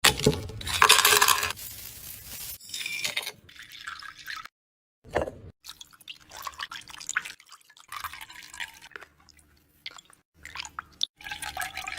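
Wet kitchen sounds of food and liquid being handled: a rush of liquid about a second in, then scattered drips, clinks and squishes, broken by brief silent gaps.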